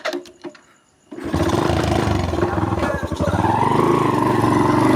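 Motorcycle engine cutting in suddenly about a second in and running steadily, its pitch rising a little near the middle.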